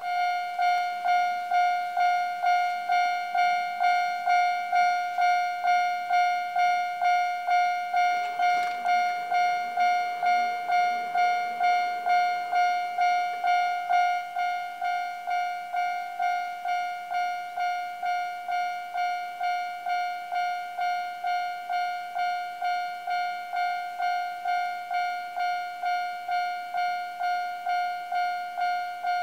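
Japanese railway level-crossing warning bell starting up and ringing in a steady electronic 'kan-kan' at about one and a half strokes a second, slightly quieter from about halfway; it is the warning that a train is approaching.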